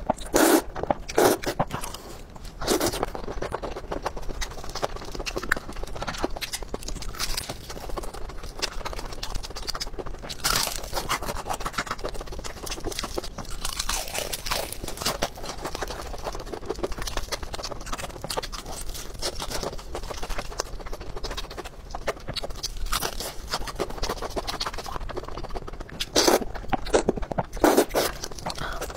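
A person eating close to the microphone: slurping noodles at the start, then biting into crispy fried chicken with repeated crunches and wet chewing, the loudest crunches coming near the end.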